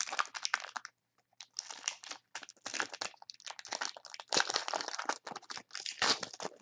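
Foil wrapper of a trading-card pack crinkling in the hands and being torn open, in irregular rustling bursts with a brief pause about a second in.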